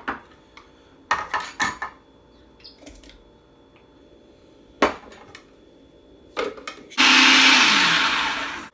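A few short knocks and clatters, then an electric blender running hard for under two seconds near the end, blending peaches; its motor note drops just before it cuts off.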